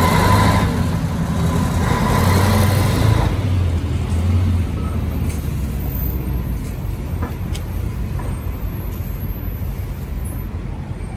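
City street traffic: a heavy vehicle's engine running close by with a hiss for the first few seconds, then easing off into a steady, quieter traffic hum.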